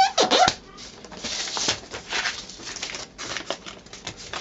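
A sheet of paper being folded and creased by hand: irregular rustling and scraping of the paper, with a short falling squeak at the very start.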